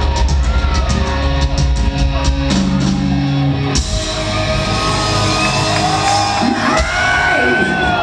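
Live rock band playing loudly with drums and guitars, heard from the crowd in a large hall. About four seconds in the drumming stops and a held chord rings on, with sliding wails over it near the end.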